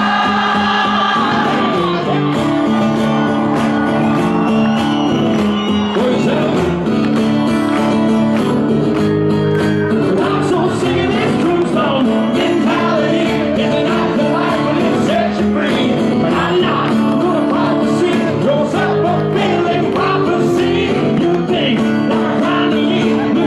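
Acoustic guitar played live in a large hall, strummed steadily, with voices singing and shouting along over it.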